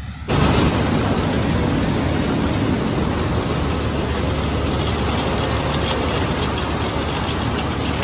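Preet 987 combine harvester running while its unloading auger pours threshed soybeans into a tractor trolley. A steady, loud machinery noise with a deep hum cuts in abruptly about a quarter second in and holds evenly.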